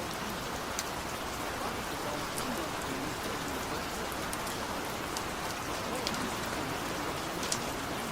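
Steady rain, an even hiss with scattered sharp drop ticks, and a faint voice murmuring underneath.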